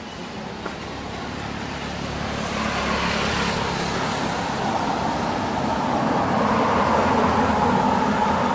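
A road vehicle approaching along the road, its engine and tyre noise growing steadily louder from a few seconds in.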